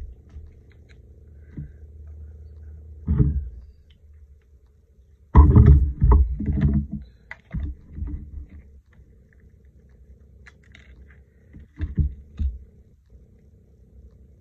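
Craft supplies being handled on a work table: scattered thumps and knocks, with a burst of clatter about five to seven seconds in as an ink pad is picked up and set down, over a low steady rumble.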